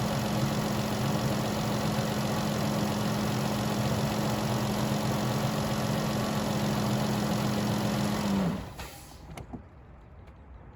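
Chrysler car engine idling steadily, then switched off about eight and a half seconds in, the sound dying away quickly; a faint click follows.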